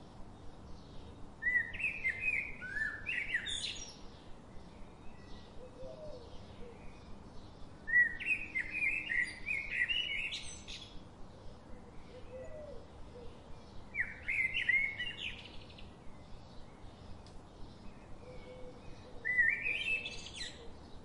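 A songbird singing short, quick chirping phrases, four in all, about every five to six seconds, over a faint background with a soft, rapid, regular ticking.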